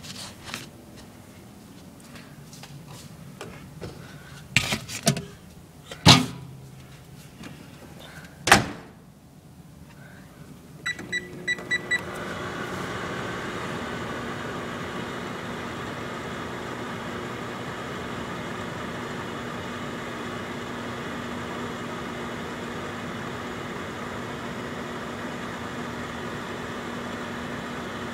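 Microwave oven: a few sharp knocks as the door is handled and shut, a quick run of keypad beeps, then the oven starting up and running with a steady hum.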